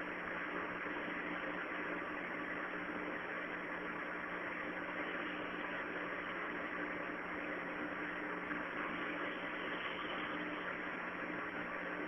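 Steady background hum with hiss, even throughout with no rhythmic rise and fall.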